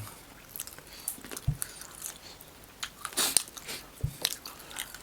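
Close-up eating of fried crab: irregular crunching and chewing with crisp clicks, a louder crunch about three seconds in. Two brief low thuds come about a second and a half and four seconds in.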